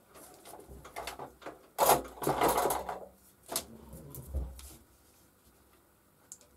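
Wooden pieces and tools being handled on a workbench: scattered knocks and scraping, with a loud clattering scrape lasting about a second from about two seconds in, then a few sharp knocks.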